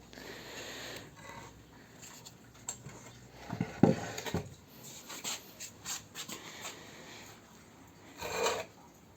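Hands rubbing over and handling a sanded wooden log stool, with a few knocks of wood about four seconds in.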